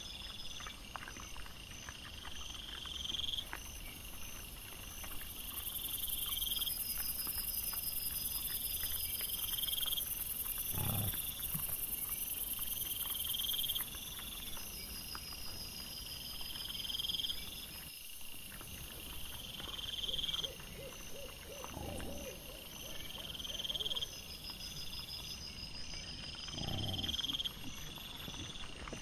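Night insects chirping: a repeating high chirp about every one and a half seconds over a fainter, faster-pulsing trill, played back at four times speed. A few brief lower sounds come in near the middle and towards the end.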